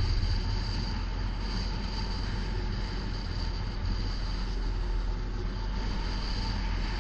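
Enduro motorcycle running steadily on the move: a constant heavy low rumble with hiss above it.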